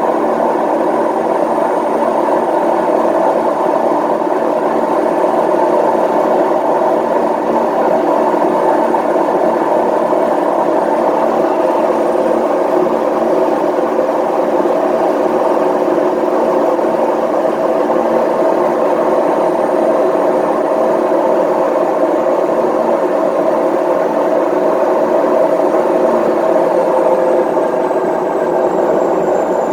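A machine running steadily with a harsh whirring noise and a faint high whine that slides down near the end. The owner takes it as a sign that the machine is about to break down.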